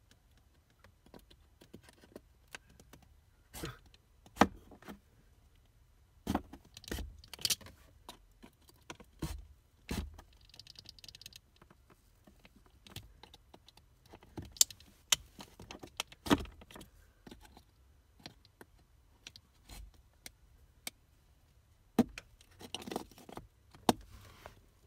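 Utility knife blade cutting through the moulded plastic of a vehicle's heater box: irregular clicks, scrapes and sharp cracks as the blade is worked along the edges to cut out the cover over the cabin air filter slot.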